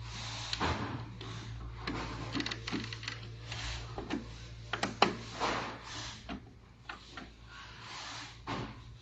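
Hands handling machine parts and a connector: a run of light knocks, rubs and clicks, with one sharp click about five seconds in, over a steady low electrical hum.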